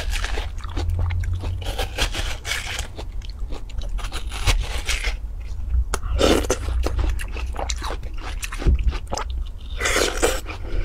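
Metal spoon scraping and scooping through juicy watermelon flesh in a half melon, with a wet, crisp crunching. About six seconds in and again near the end come louder wet bites and chewing of the watermelon, over a steady low rumble.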